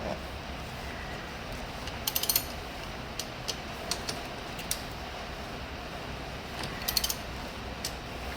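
Socket ratchet with a 13 mm socket clicking as brake caliper bolts are turned out: two short runs of rapid clicks, about two seconds in and again near seven seconds, with single clicks between them.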